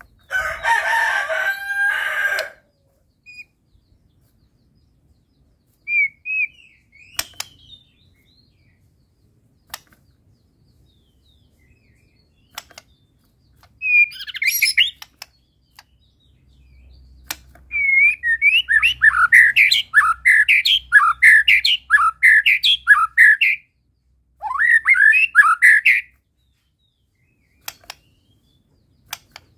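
White-rumped shama singing in separate bursts with pauses between them: a dense phrase at the start, short phrases, then a long run of quick repeated rising notes about two-thirds in and one more burst near the end. A few sharp clicks fall in the pauses.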